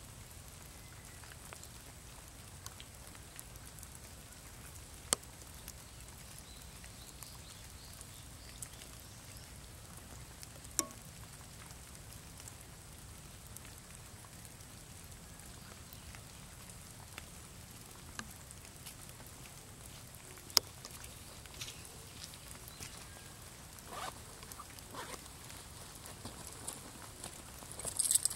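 Light rain falling: scattered single drops ticking sharply now and then over a faint steady patter, with a short cluster of louder ticks at the very end.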